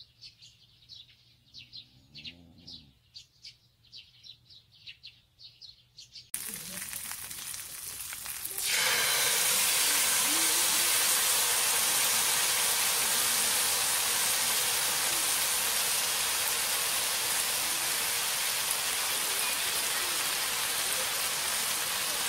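Faint repeated chirping for the first few seconds, then, after a cut, a frying pan of shrimp and fish cakes sizzling steadily as red sauce is squeezed in.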